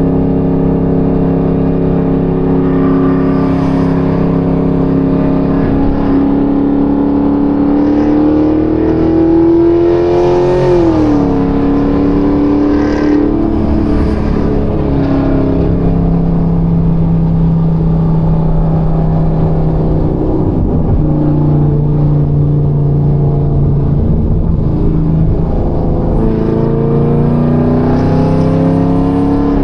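Chevrolet Camaro ZL1's supercharged V8 running while the car is driven. The engine note climbs slowly for about ten seconds, drops quickly about eleven seconds in, then holds steady and climbs again near the end.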